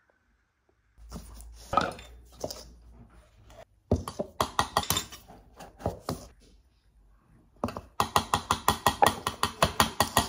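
Clinks, knocks and scrapes of a metal measuring scoop working in a tub of greens powder and over a glass, ending in a run of quick taps, about five a second, as powder is knocked off the scoop into the glass.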